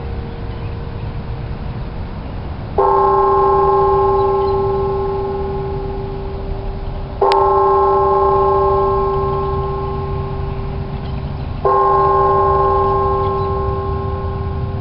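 A church bell tolling slowly: three strikes about four and a half seconds apart, each one ringing on and fading before the next. Each strike has the same set of tones, so it is the one bell, heard over a low background rumble.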